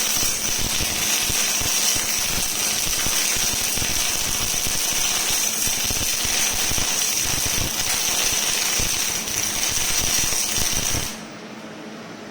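Robotic arc welding: the welding arc crackles and sputters continuously with a steady high whine over it, then cuts off abruptly about eleven seconds in as the weld run ends.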